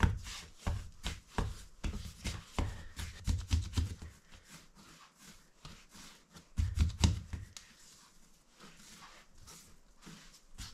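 Hands kneading and shaping a ball of seedy bread dough on a floured worktop: repeated soft slaps and thuds of dough against the counter, loudest about seven seconds in, then quieter rubbing as the ball is rounded.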